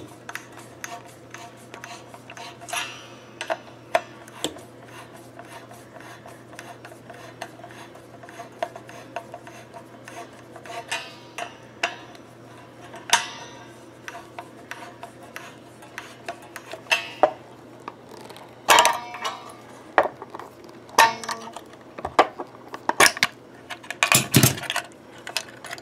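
Screwdriver and hands working the spring claw and steel tremolo springs in a Strat-style guitar's back cavity. Scattered metal clicks, scrapes and rattles, louder and more frequent over the last several seconds.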